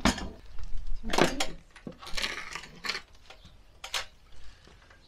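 Irregular scrapes, clinks and knocks of plastering work: a trowel scooping fresh render mortar from a plastic bucket, and someone stepping onto an aluminium ladder-and-plank work platform.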